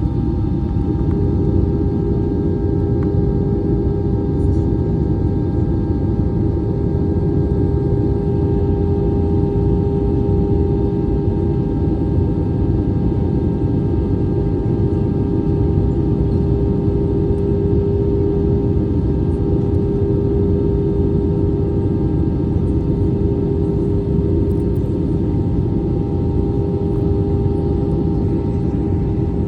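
Steady in-flight cabin noise of an Airbus A319 airliner: a constant rumble of airflow and jet engines with a steady droning hum, unchanging throughout.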